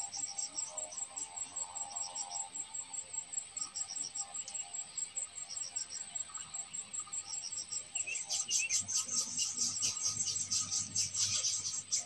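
Insects chirping in a rapid, steady pulse of high chirps, about four a second, growing louder and denser about eight seconds in.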